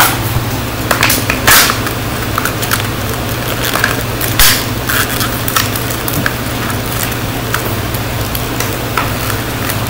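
Plastic blind-bag toy wrapper crinkling and crackling in short irregular bursts as hands pull and twist at it, with a steady low fan hum underneath.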